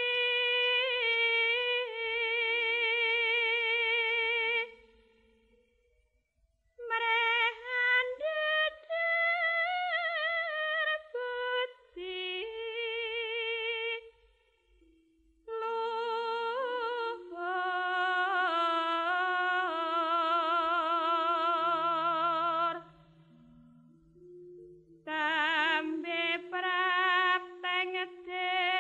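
Javanese gendhing in ladrang form: a high, ornamented vocal line with wide vibrato, sung in phrases with short pauses between them. A lower sustained note comes in under it about three quarters of the way through.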